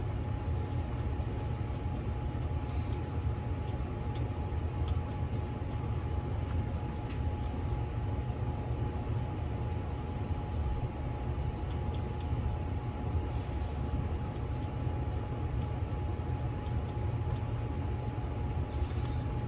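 Steady low hum and rumble of a small fan motor running, with a faint constant whine over it.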